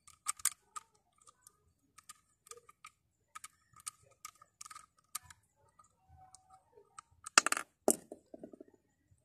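Small metallic clicks and ticks of a precision screwdriver working the bail-arm screw on a Shimano Sienna 2500FD spinning reel, as the bail is taken off to get at the bail spring guide. Near the end comes a louder clatter of small hard parts.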